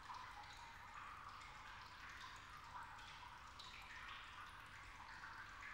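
Faint, irregular dripping and trickling of water.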